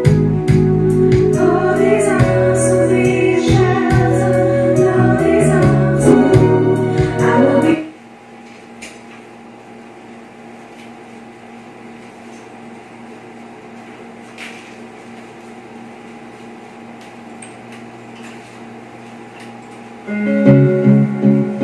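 Karaoke song played back through speakers: keyboard-led backing with a sung melody that ends abruptly about eight seconds in. A steady low hum follows for some twelve seconds, and near the end the next song's intro starts with plucked guitar.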